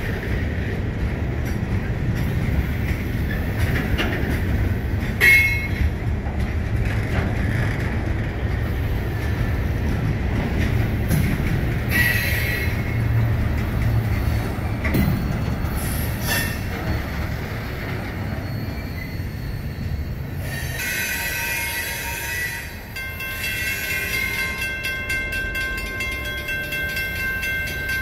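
Loaded rock hopper cars of a freight train rolling past: a steady low rumble of steel wheels on rail, with a few brief high wheel squeals. About three-quarters of the way through the rumble falls away as the train clears, and a steady high ringing tone carries on to the end.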